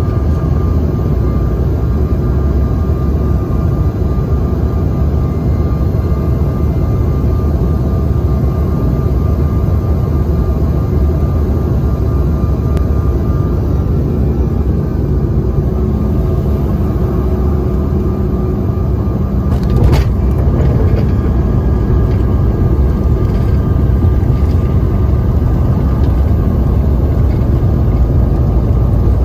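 Cabin noise of a Bombardier CRJ-900 landing: steady rumble of airflow and its General Electric CF34 turbofans, with a thin steady whine. About two-thirds of the way through, a sharp thump as the wheels touch down, then a slightly louder rumble of the rollout on the runway.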